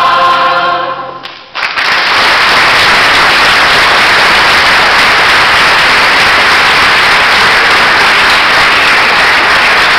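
A mixed choir's final held chord fading out over the first second or so, then audience applause starting suddenly about a second and a half in and going on steadily.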